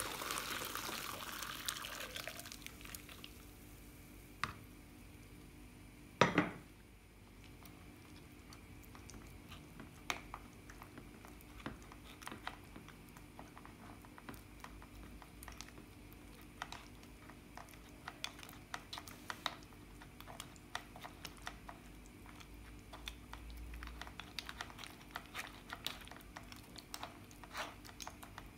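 Boiled tamarind liquid poured from a pot through a plastic sieve into a jug, splashing for the first couple of seconds. A single sharp knock about six seconds in. Then a metal spoon pressing and scraping the tamarind pulp in the plastic strainer: many small irregular clicks and scrapes.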